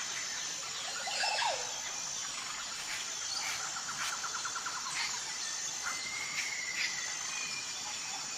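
Jungle ambience: a steady high insect drone with many bird calls and chirps over it, including a short falling call about a second in and a rapid trill a few seconds in.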